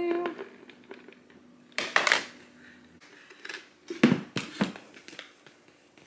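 Handling noise from hot-glue crafting: a plastic flower pot, jute rope and a hot glue gun rubbing and knocking against a stone countertop. A few short, irregular scrapes and knocks, the loudest about two and four seconds in.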